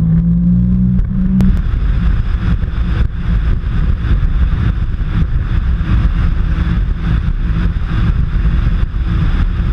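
Supercharged Sea-Doo RXP jet ski engine revving up to a steady note in the first second or so, then running at speed under a loud rush of wind buffeting the handlebar-mounted camera and hissing water spray.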